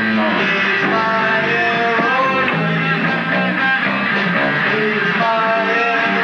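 A live rock band playing: electric guitar, bass guitar and drum kit, with a singer on vocals.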